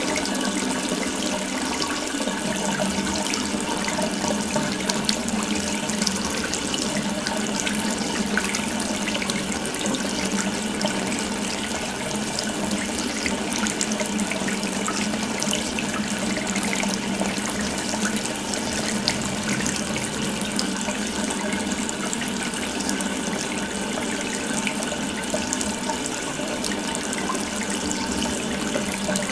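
Water running steadily from an open faucet: a continuous, even splashing stream.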